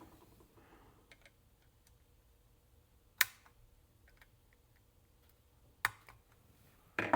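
A few sharp clicks, with faint ticks between them, from small hand tools handled during circuit-board desoldering work.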